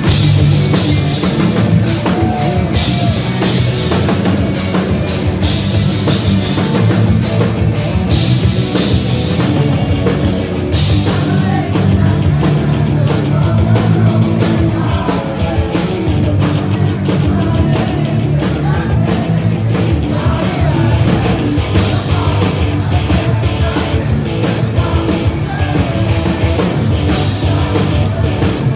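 Live rock band playing loud: electric guitars, bass and drum kit, with a vocalist singing into a microphone.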